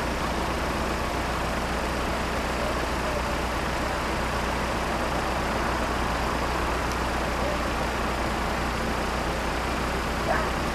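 Road vehicles idling while held at a closed level crossing: a steady low engine hum under even traffic noise. A brief click just before the end.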